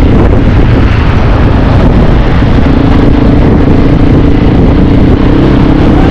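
Dirt bike engine running at a steady speed, buried under heavy wind buffeting on the microphone while riding.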